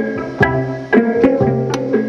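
Pedal steel guitar played with finger picks and a steel bar: a steady run of plucked notes and chords, a new pluck every quarter to half second, ringing on over a sustained low bass note.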